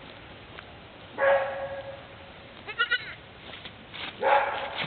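Goats bleating: two separate calls, each about half a second long, the first about a second in and the second near the end. Between them comes a brief, rapid, high-pitched pulsed chirp.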